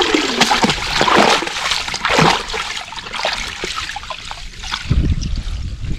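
Water splashing and sloshing as it is scooped and poured for the fish soup, in short irregular splashes. A low rumble joins about five seconds in.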